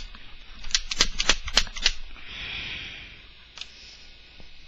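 Spider Victor paintball gun being knocked and shaken to work its internals loose: a quick run of sharp clicks and knocks about a second in, then a soft rustle and one more click. The internals stay stuck because the bolt is still inside.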